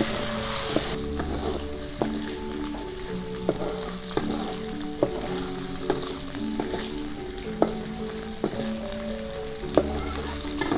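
Dried anchovies sizzling in hot oil in a steel wok. A metal spatula scrapes and knocks against the wok about once a second as they are stirred.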